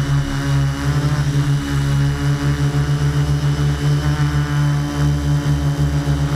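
Multirotor drone's electric motors and propellers humming steadily in flight, heard from the camera mounted on the drone itself. The hum holds a few steady pitches that waver and beat against each other.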